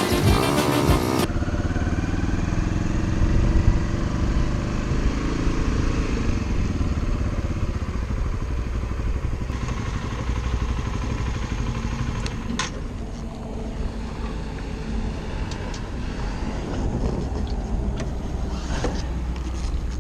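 Music cuts off about a second in, followed by a motorcycle engine running, rising in pitch over the next few seconds and then holding steadier.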